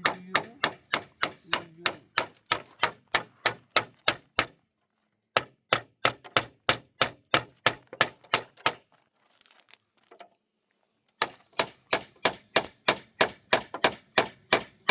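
A hand tool striking wood in quick, even blows, about three a second. The blows come in three runs, broken by a short pause about four and a half seconds in and a longer one of about two seconds near ten seconds in.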